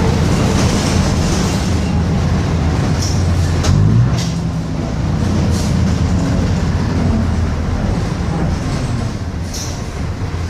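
Bristol RELL6L single-deck bus's diesel engine running under way, heard from inside the saloon, with body rattles throughout. About four seconds in there is a knock and the engine note briefly rises; the sound eases a little near the end.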